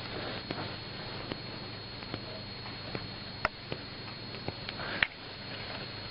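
Handling sounds of a chiropractic session: soft rustling and small clicks over steady hiss and a faint high whine, with a sharp click about three and a half seconds in and a louder crack about five seconds in.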